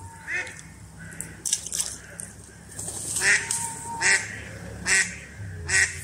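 Ducks quacking: a short call near the start, then a run of about four harsh quacks under a second apart in the second half.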